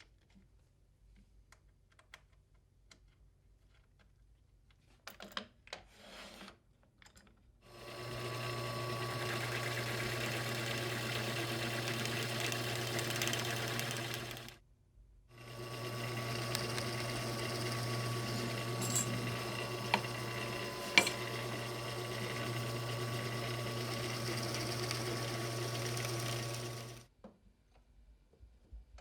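Drill press motor running steadily with a low hum, stopping briefly about halfway through and starting again, with a few sharp ticks in the second run. A few light knocks come before it starts.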